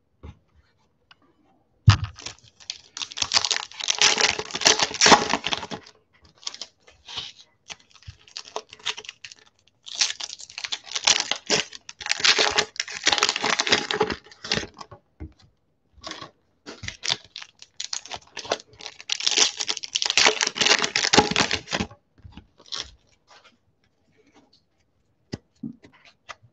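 Foil trading-card pack wrapper crinkling and tearing open by hand, in three long bouts of crackling, with scattered small clicks of cards and wrapper being handled in between.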